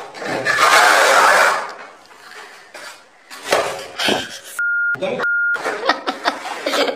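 A loud crash about half a second in as a paint bucket drops onto a worker's head, then a man's voice with two short steady censor bleeps over his swearing.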